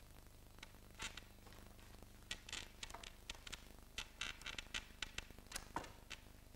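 Faint, irregular clicks, scuffs and creaks of a performer's shoes and hands against a freestanding square frame and the stage floor as he shifts his weight. A low steady mains hum runs beneath.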